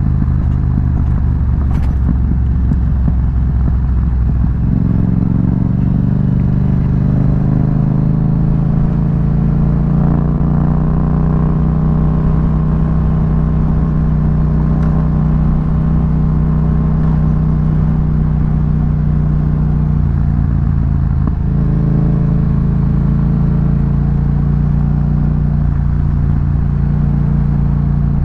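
Yamaha MT-07's 689 cc parallel-twin engine running while the bike is ridden along a dirt road. The engine note shifts in pitch a few times as the throttle and gears change.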